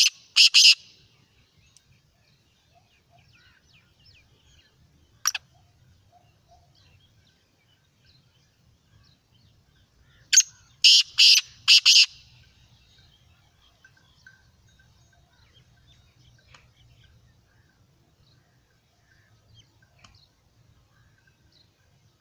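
Black francolin calling: a call ends just after the start, a single short note comes about five seconds in, and a full call of about five quick notes comes about ten seconds in, with only faint background between.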